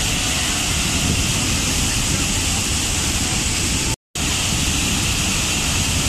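A large waterfall crashing down onto rocks and pool: a dense, steady rush of water. The sound cuts out to silence for a split second about four seconds in, then resumes.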